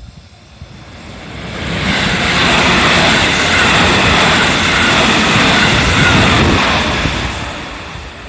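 JR 313 series electric multiple unit passing at speed, its wheels and running gear rumbling on the rails. The sound builds over about two seconds, holds for about four, then fades near the end.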